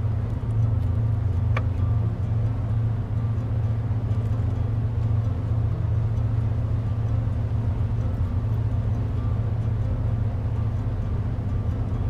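Steady low rumble of water rushing through a river spillway, even in level throughout.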